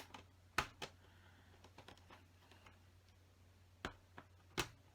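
LEGO plastic bricks clicking as pieces are handled, pulled off and pressed into place: a few sharp, separate clicks, loudest about half a second in and again near the end. This is a misplaced piece in the build being corrected.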